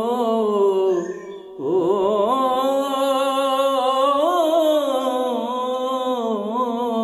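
A man singing an Urdu ghazal, drawing out one syllable into long, ornamented held notes. About a second and a half in there is a brief breath, then a new note rises and is held with a slow waver.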